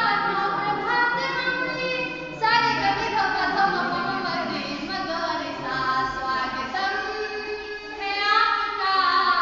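A young woman singing a swagat geet (welcome song) solo and unaccompanied, with long held notes that slide between pitches.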